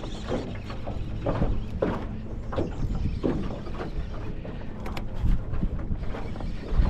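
Spinning fishing reel being cranked in uneven strokes while a bass is played in, over a constant low rumble of handling or wind noise.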